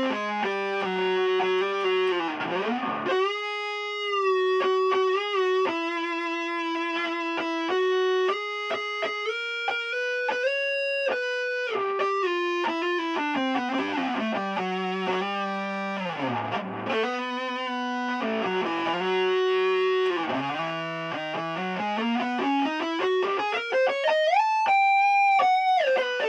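Electric guitar played through a chain of a Keeley Compressor Mini, an Electro-Harmonix Nano Big Muff Pi fuzz and an Electro-Harmonix Soul Food overdrive, all switched on: a single-note lead line of long sustained notes with several sliding pitch glides.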